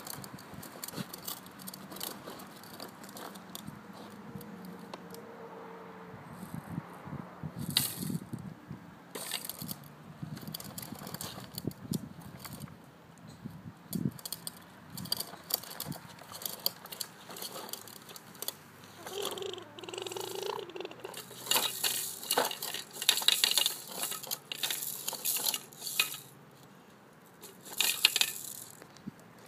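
Irregular plastic clicking and rattling from a toddler's ride-on walker toy as its dome and key-shaped handle are worked. The clicks grow busier and louder over the last third.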